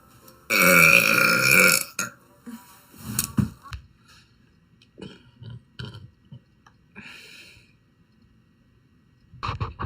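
A girl burps once, loud and long: a pitched belch lasting about a second and a half, starting about half a second in. A few short, softer sounds follow.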